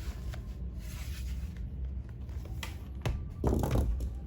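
Plastic bottom cover of a laptop being fitted back on and pressed into place: scattered clicks and knocks, the loudest about three and a half seconds in, over a steady low hum.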